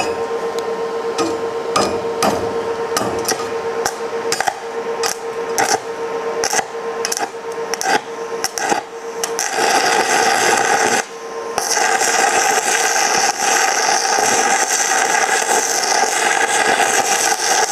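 Stick-welding arc on a steel I-beam, crackling and spitting. The pops are irregular at first, then from about nine and a half seconds in they become a steady, dense frying crackle, broken briefly near eleven seconds.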